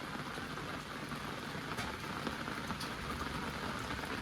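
Rain falling steadily, an even hiss of rain with scattered drops ticking.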